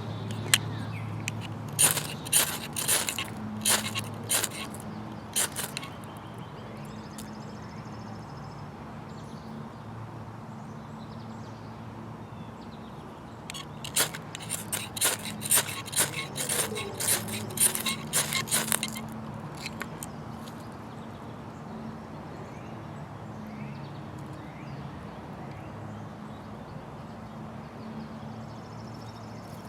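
Saw blade of a Swiss Army Farmer pocket knife scraped lightly down a ferrocerium rod to throw sparks, in two runs of quick, sharp strokes with a pause between them.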